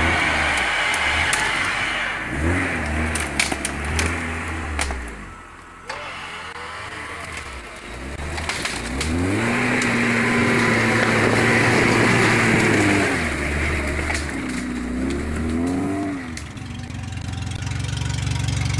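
Off-road SUV engine revving in repeated surges while crawling over rock and mud, with a rushing hiss that comes with the revs; the longest rev is held for several seconds in the middle. Near the end the sound settles to a low, steady engine idle.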